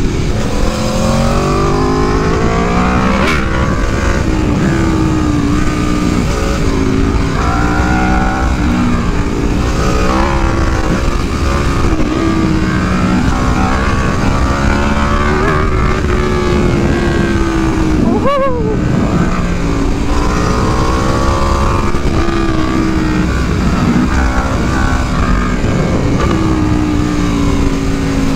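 Aprilia Tuono V4 motorcycle engine under hard riding, the revs climbing and falling again and again as the throttle opens and closes. About two-thirds of the way through, the revs drop sharply and climb straight back up.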